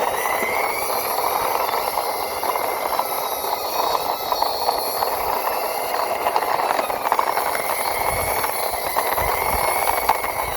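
Plastic wheels of a toy fire truck rolling and rattling along the ground as it is pushed by hand, a steady clattering rumble full of quick small ticks.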